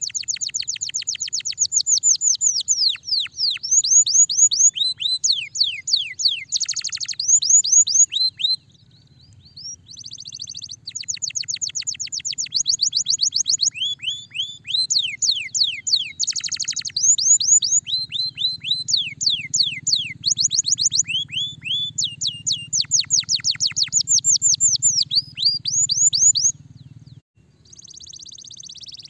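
Canary singing long runs of fast trills, each note a quick downward-sweeping whistle, repeated many times a second. The runs are broken by a couple of short pauses.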